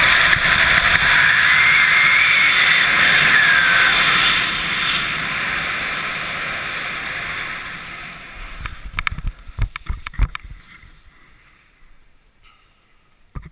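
Wind rushing over the camera microphone during a parachute landing approach, loud at first and fading away over several seconds as the canopy slows for touchdown. Near the end a few knocks and scuffs on the grass, then much quieter.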